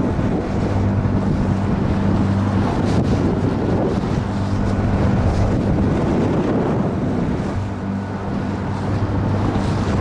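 Boat motor running with a steady low hum, partly drowned at times by heavy wind buffeting the microphone and the wash of choppy water.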